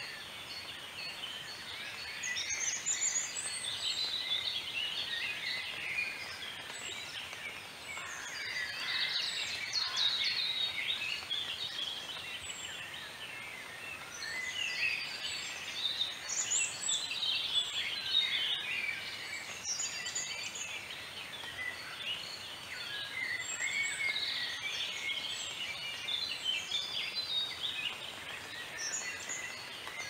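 Dense chorus of many birds calling at once: short, high chirps and trills overlapping throughout, over a faint outdoor hiss.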